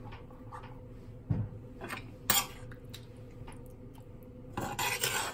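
Metal spoon knocking, clinking and scraping against a frying pan while scooping cooked filling into a hollowed round courgette: a dull knock about a second in, two sharp clinks around two seconds, and a longer scrape near the end.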